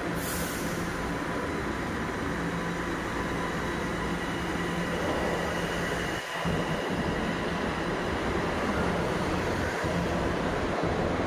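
Toronto Rocket subway train pulling out of the station platform: a steady running hum of motors and wheels on rail with a low tone throughout, getting slightly louder toward the end. A short hiss comes right at the start.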